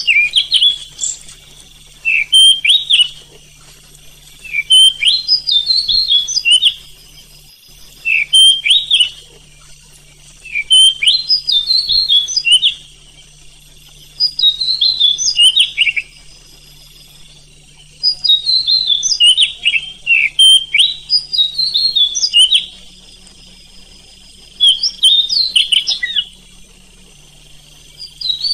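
Oriental magpie-robin (kacer) singing: bursts of quick, varied whistled notes about one to two seconds long, coming every two seconds or so, over a faint steady low hum.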